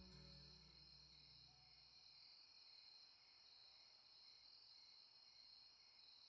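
Near silence: faint, steady chirring of crickets, with a low music tone dying away in the first two seconds.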